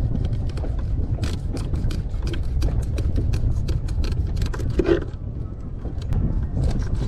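A knife cutting through a small grunt fish, a quick run of sharp crackling clicks from about a second in to about five seconds in, over wind buffeting the microphone with a steady low rumble.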